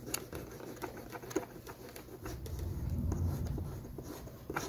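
Eraser rubbing back and forth over the gold contacts of a desktop RAM module: a quick, faint run of small scratching ticks. It is cleaning the contacts for a suspected poor memory contact. A low rumble rises and fades in the middle.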